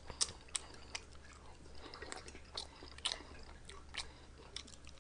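A person chewing a mouthful of food close to the microphone, with soft, irregular wet mouth clicks and smacks.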